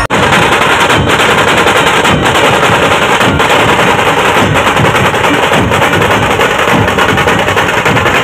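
A troupe of large barrel-shaped dhol drums beaten with sticks, playing a loud, fast, dense rolling rhythm without a break.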